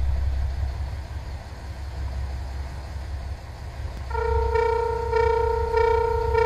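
Low rumble, then about four seconds in a Japanese railway level-crossing alarm starts up: a repeating electronic ding, a bit under two a second, the warning that a train is approaching.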